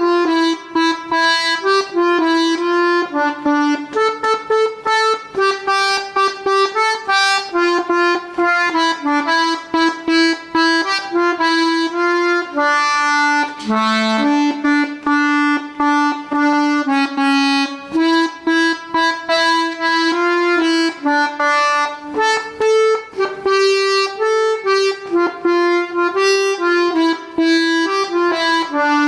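Bayan (Russian button accordion) playing a song melody: a steady run of reedy sustained notes changing pitch, with a few longer held notes.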